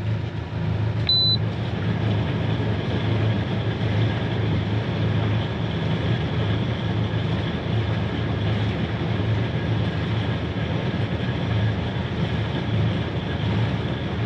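Electric anchor windlass paying out anchor chain, running steadily, with a short high beep about a second in.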